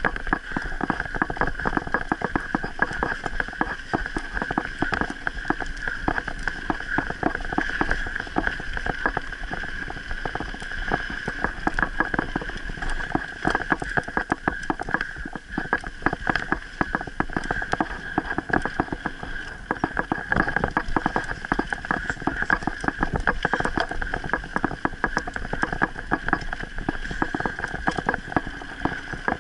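Mountain bike rattling and clattering over a rough dirt trail on a descent, a dense run of small irregular knocks, over a steady high buzz.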